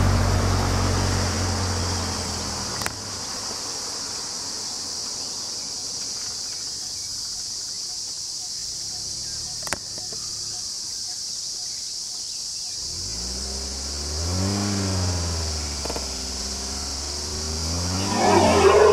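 A steady high insect drone, with a vehicle engine running low at the start and fading over the first couple of seconds. In the last six seconds a low pitched sound rises and falls twice, and a louder rough burst comes near the end.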